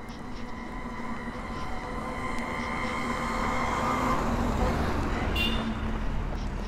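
A motor vehicle passing close by: a steady engine drone with a humming tone swells to its loudest about four to five seconds in, then fades. A brief high-pitched note sounds just after the peak.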